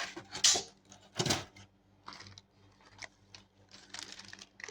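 Packaging being handled during an unboxing: irregular rustles, clicks and light knocks, with two louder bursts in the first second and a half, then quieter scattered rustling.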